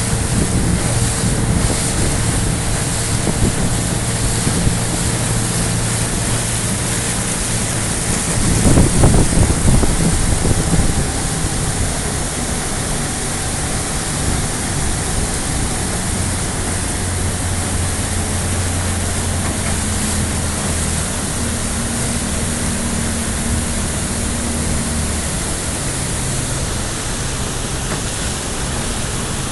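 A boat motor runs steadily, its low hum shifting in pitch partway through, under a loud, even rush of wind and water. About nine seconds in, the rushing swells louder for a couple of seconds.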